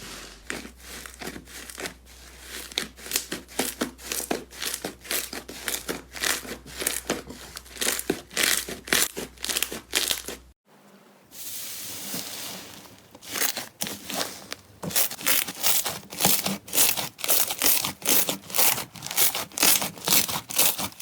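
Crunchy slime being squeezed and pressed, giving a quick run of crackles and pops several times a second. The sound breaks off about halfway through, then the crackling starts again in a steadier rhythm.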